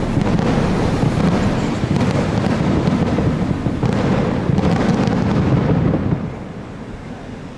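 Fireworks display: a dense, continuous barrage of bursts and crackling with a low rumble, dropping away sharply about six seconds in.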